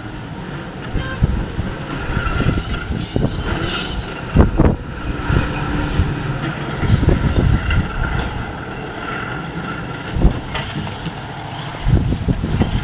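E-2503 front-shovel excavators working limestone: a steady low machinery rumble broken by several heavy thumps and knocks as rock is dug and dropped into a dump truck. The truck's engine runs under it, and the truck pulls away near the end.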